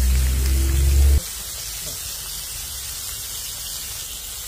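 Butterfish fillets shallow-frying in hot oil in a pan, a steady sizzle. For about the first second a loud low hum runs over it, then cuts off suddenly.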